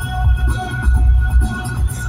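Electronic dance music with a heavy pulsing bass beat and held synth tones, played loud over a circus tent's loudspeakers.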